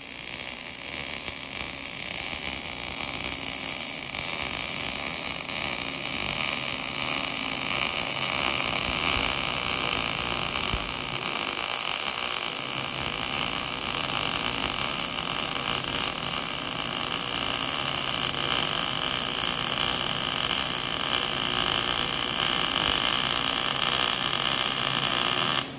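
Electric arc welding on steel: the arc sizzles in one long continuous bead, and the sizzle cuts off sharply at the end as the arc is broken.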